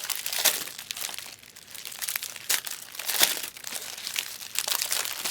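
Foil wrappers of Panini Prizm and Optic trading card packs crinkling and tearing as the packs are opened, in irregular bursts of rustling.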